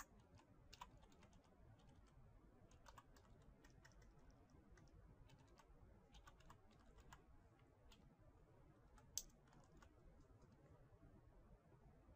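Faint typing on a computer keyboard: scattered, irregular keystrokes, with one louder click about nine seconds in.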